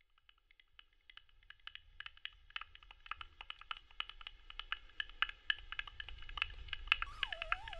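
Experimental soundtrack: rapid, irregular clicks that ring at a few fixed pitches, fading in and growing louder over a low rumble, with a wavering, gliding electronic tone entering near the end.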